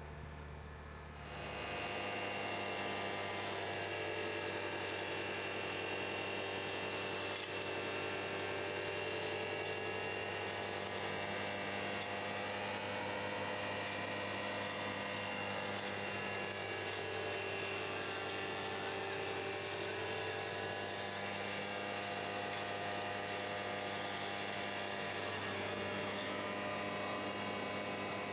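Hydrovac excavator truck on a CAT CT660 chassis running its vacuum system while digging, a steady machine whine over a rushing hiss as the hose sucks soil from the hole. It gets louder about a second and a half in, then holds steady.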